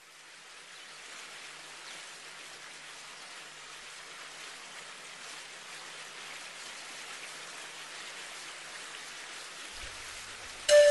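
Steady rain-like hiss that fades in over the first second, with a faint low hum under it. Music with a flute-like tone cuts in loudly just before the end.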